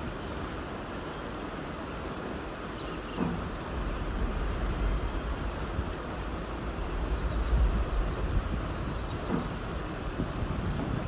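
Freight train hopper wagons rolling over a steel girder railway bridge: a steady rumble of wheels on rails, with a couple of clunks as wheels pass over the track.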